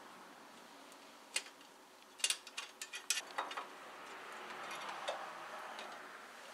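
Light metallic clicks and clinks as the flat metal camshaft locking plate is worked loose and lifted out from the camshaft sprockets of an Audi V6 engine. There is one click about a second in, a quick run of clicks over the next second and a half, then a few faint ticks.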